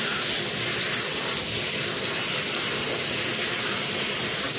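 Water running steadily from a handheld shower sprayer, spraying onto a wet dog's coat and into the bathtub.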